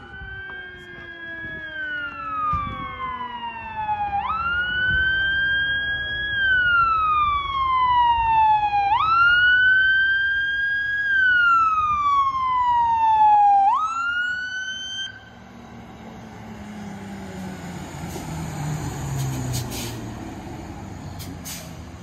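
Fire engine siren wailing in about four cycles, each a quick rise followed by a long slow fall in pitch, then cutting off about fifteen seconds in. After that the fire engine's motor runs as a low rumble.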